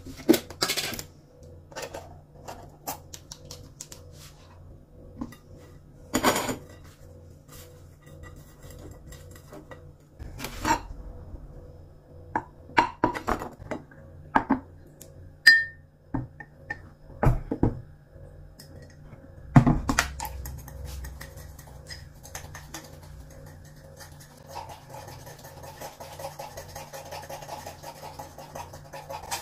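Cutlery and dishes clinking and knocking as breakfast is prepared: scattered sharp taps and clinks of utensils on plates and cups, with a few louder knocks. A steady low hum runs beneath, and a soft rustling scrape sets in near the end.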